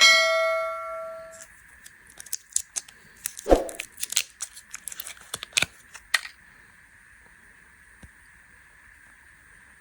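A ringing note sounds at the start and fades over about a second and a half. Then comes a run of sharp crinkles, clicks and tearing as candy packaging is handled and torn open, stopping about six seconds in.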